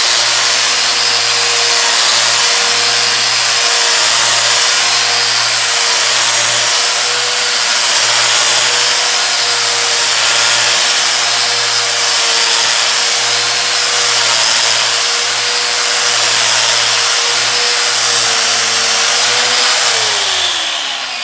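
Electric angle grinder running steadily with a 1500-grit resin diamond polishing pad, dry-polishing a marble floor without water, with a steady whine over the noise of the pad on the stone. Near the end it is switched off and the whine falls as the motor spins down.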